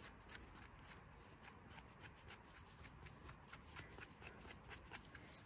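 Small knife scraping and trimming the stem of a fresh bolete mushroom: a faint, irregular run of short scratchy clicks.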